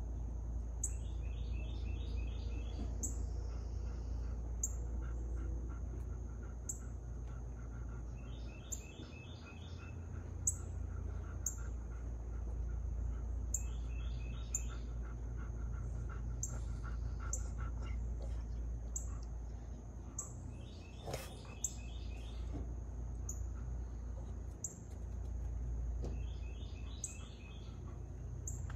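A bird sings short trilled phrases every few seconds over a steady high-pitched insect drone. The drone has a regular chirp about every second and a half. A low steady rumble runs underneath.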